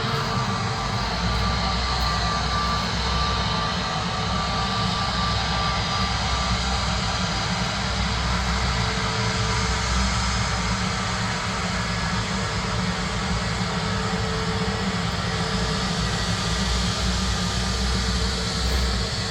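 Jet airliner engines running with a steady rumble and whine. A faint high tone fades out about a third of the way through.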